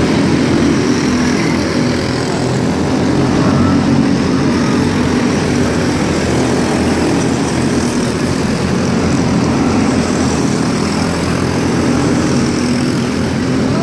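Engines of several microstock cars (small winged sprint-type race cars) running together on a dirt oval, a loud, steady engine sound without clear rises or falls.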